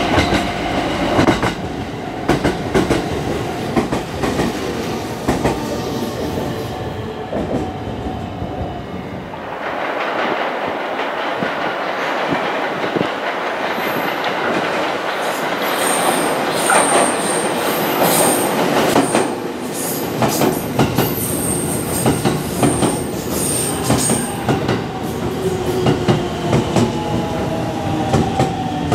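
JR Central electric commuter trains pulling into a station, wheels clattering over the rails, with high-pitched wheel and brake squeal in the middle. A falling motor whine near the end as the train slows to a stop.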